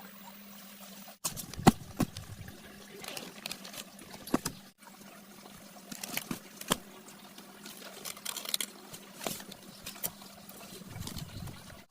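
Water splashing and trickling, with irregular sharp clicks and knocks.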